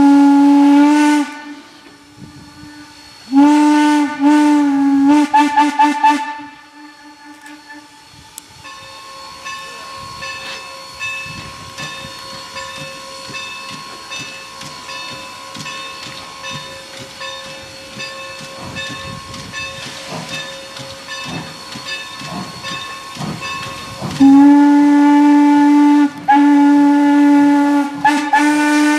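Steam locomotive chime whistle, the 12-inch hooter on ex-Norfolk & Western 4-8-0 No. 475, blowing a long blast, then a string of short toots a few seconds in. After about twenty quieter seconds, long blasts sound again near the end.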